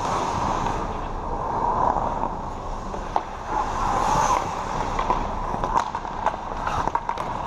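Ice hockey play: skate blades scraping and carving on the ice over a steady rink hum, with sharp clacks of sticks and puck, several of them close together in the second half as a puck carrier skates near.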